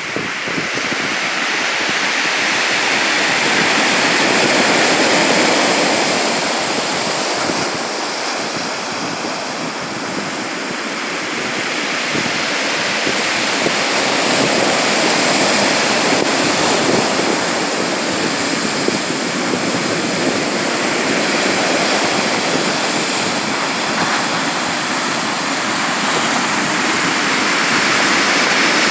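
Sea surf: a continuous rush of waves washing in, swelling and easing slowly in loudness every several seconds.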